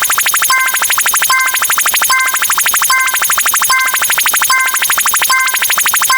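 Looping synthesized electronic sound effect: rapid even clicking with a short chord-like beep that repeats about every 0.8 seconds.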